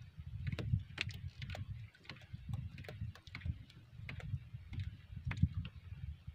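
Low, uneven rumble of wind and sea water against a small outrigger fishing boat. Scattered light clicks and taps come as a multi-hook handline is hauled in by hand over the gunwale.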